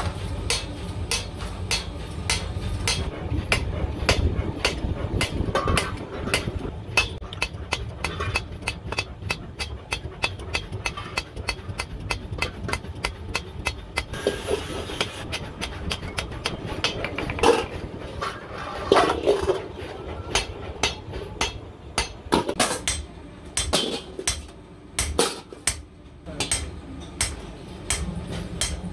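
Hand hammer beating a sheet-iron wok against a round iron forming block, about four sharp metallic strikes a second. The blows come more sparsely, with short pauses between them, near the end.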